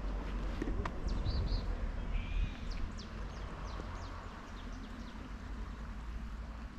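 Small birds chirping, scattered short high notes and quick falling calls, over a steady low rumble of wind on the microphone.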